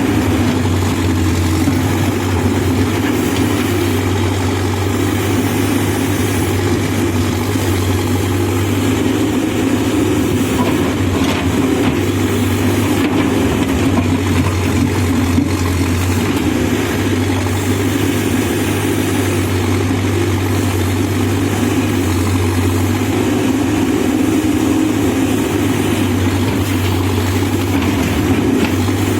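Diesel engine of a backhoe loader running steadily, a constant low rumble with no marked revving or impacts.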